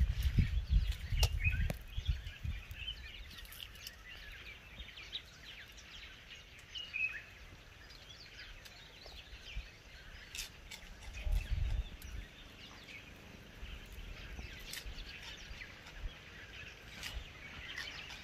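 Small birds chirping and calling off and on in the background, with low rumbling noise at the start and again about eleven seconds in.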